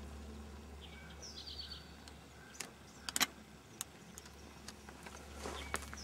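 A songbird sings one short phrase about a second in: a high slurred note, then a quick run of four or five notes. A few sharp clicks come in the middle, the loudest about three seconds in, over a low steady hum.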